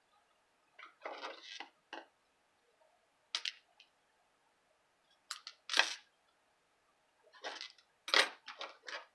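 Scissors snipping ribbon and card stock being handled on a table: a string of short rustles and sharp clicks, the loudest just past the middle.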